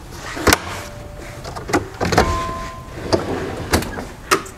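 A portable fridge on its slide being pulled out and opened: a run of clicks and knocks from the latches and the sliding tray, with a rumbling slide from about halfway through and two short steady tones along the way.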